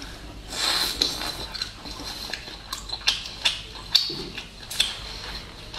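Close-miked eating of boiled shrimp: a noisy bite and chew starting about half a second in, then a run of sharp, wet mouth clicks and smacks as the shrimp meat is chewed.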